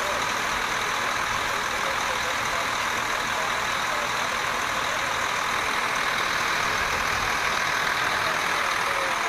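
An engine running steadily: an even, unchanging drone with no clear pitch and no breaks.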